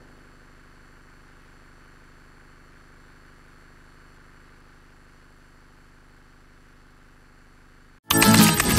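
Faint, steady electrical hum and room tone with no speech. About eight seconds in, it cuts out and loud jingle music with chimes starts.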